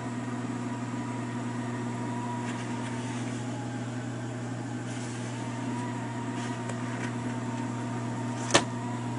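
Haier split-system heat pump indoor unit running: a steady low hum of its blower with a fainter steady tone above it, and one sharp click about eight and a half seconds in.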